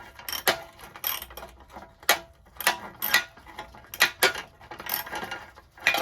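Hand tools working the bolts of a VW Beetle's rusted bumper irons: sharp metal clicks and clanks, about two a second, at an uneven pace.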